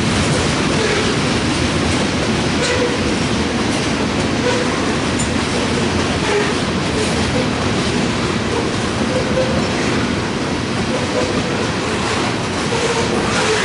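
Loaded grain hopper cars of a freight train rolling past on an uphill grade: a steady rumble with wheels clicking over the rail joints and faint, on-and-off wheel squeal.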